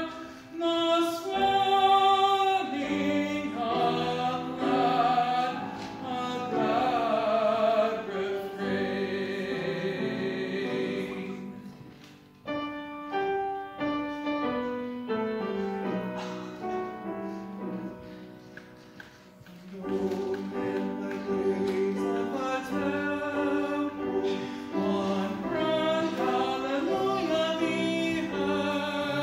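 A tenor singing a sacred solo with instrumental accompaniment, in long held notes with vibrato. About twelve seconds in, the voice drops out and the accompaniment plays alone for some eight seconds, dying down low before the singing comes back in.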